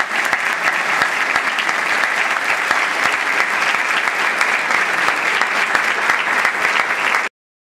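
Audience applauding, dense and steady, cutting off suddenly near the end.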